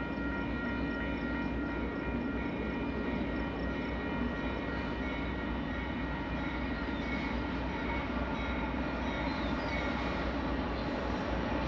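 Freight train rolling past: a steady rumble of wheels on rails with a steady high-pitched ringing of several tones above it.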